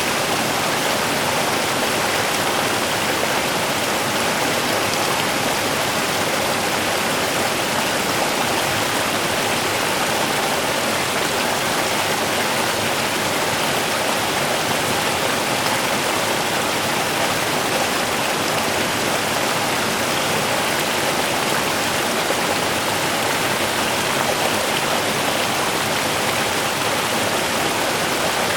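Small river running steadily over its bed, a constant rushing and babbling of water.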